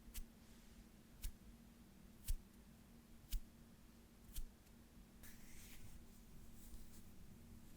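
Small hand sounds close to the microphone: five sharp clicks about a second apart, then a brief hissing rub of the hands about five seconds in and a fainter one near the end.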